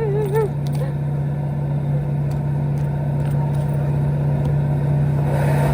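Steady car engine noise, a constant low hum over an even rumble.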